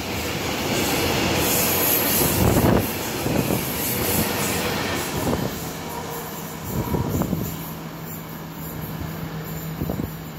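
Freight train of silo hopper wagons rolling past, its wheels clacking over rail joints. The rolling noise fades as the last wagons go by and the train draws away.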